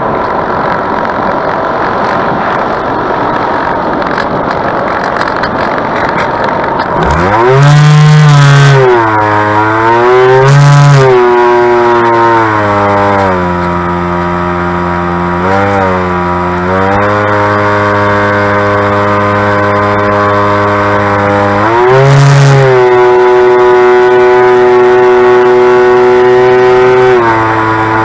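Bixler 2 RC glider's brushless electric motor and pusher propeller, heard from a camera on board with wind rush over the airframe. About seven seconds in, the motor throttles up to a whine that rises and falls several times, then holds steady and drops slightly in pitch near the end.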